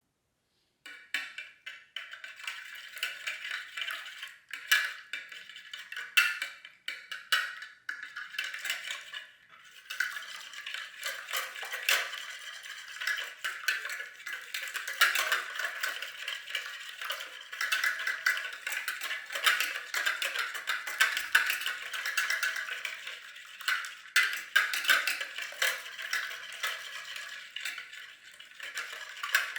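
A kitchen utensil stirring in a bowl and clinking against it: a fast, continuous run of small clicks and taps.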